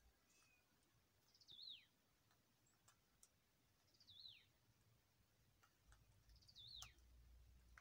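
Faint, high chirps of a small bird: three short calls about two and a half seconds apart, each a quick up-and-down note that then slides downward. A few faint clicks fall between them.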